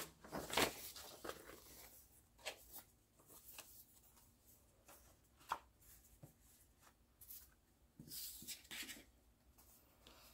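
Paper and card being handled on a table: glossy album booklets, a folded poster and photocards being moved and set down. Light rustles and taps, with one sharper tap about halfway and a longer rustle near the end.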